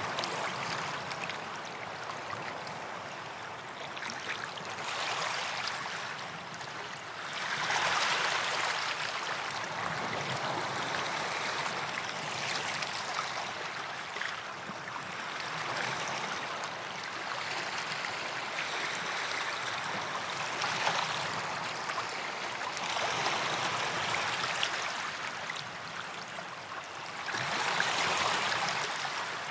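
Small waves breaking and washing up on a sandy beach, the wash swelling and easing every few seconds.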